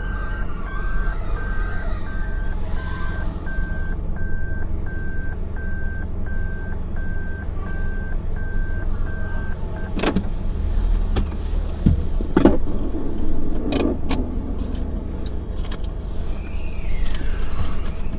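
A car on the move with a steady low road and engine rumble. A short electronic beep repeats about twice a second until about halfway through, then stops. A few sharp clicks or knocks follow.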